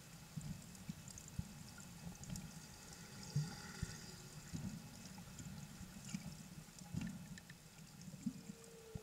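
Underwater sound of water moving past the microphone, with irregular low knocks and rumbles. Faint humpback whale song sits behind it: thin high tones in the middle and a falling moan near the end.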